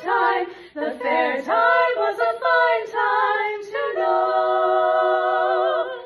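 An a cappella vocal group singing in close harmony, ending the song on a long held chord from about four seconds in that stops near the end.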